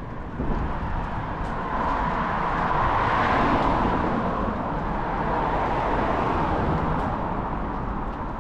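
Road noise from a bicycle ride along a street: a steady rushing of wind and traffic that builds over the first three seconds and then holds.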